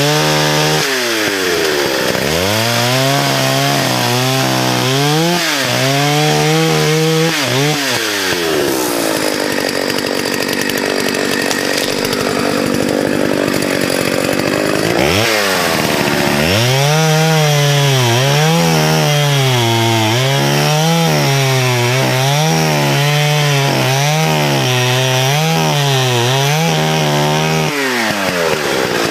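1979 Partner S55 55cc two-stroke chainsaw cutting at full throttle, its engine note warbling up and down. For several seconds around the middle it runs steadier under load in the cut, then dips briefly and picks back up. The warble at full revs comes from the carburetor's built-in governor richening the mixture near 8500 rpm, so that it sounds like it's misfiring.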